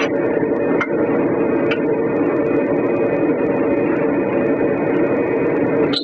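A steady mechanical whir, with two light clicks of a steel tire spoon against a steel wheel rim in the first two seconds.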